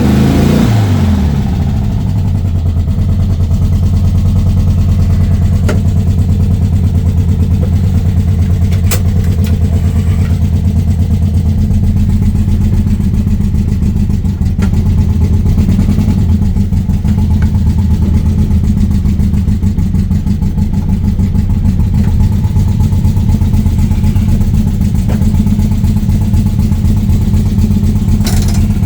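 VW Beetle's air-cooled flat-four engine running steadily at idle, its revs falling back to idle in the first second. A few short clicks sound over it.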